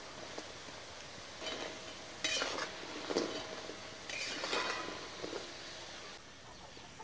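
Semolina fritters deep-frying in oil in a metal wok, a steady sizzle, with a perforated metal slotted spoon scraping and clinking against the wok as the fritters are stirred and lifted out. The scrapes are loudest a little over two seconds in and again around four seconds in.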